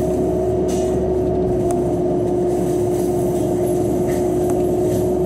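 Cat 311 excavator running with a hydraulic flail mower spinning on its arm, heard from inside the cab. It makes a loud, steady machine drone with a constant whine, and a few brief flares of hiss as the head works the ground.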